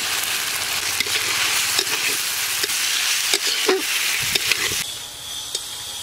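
Fried potato pieces sizzling in hot mustard oil with spice paste, stirred with a metal spatula that scrapes and knocks against the pan several times. The sizzle drops away suddenly about five seconds in.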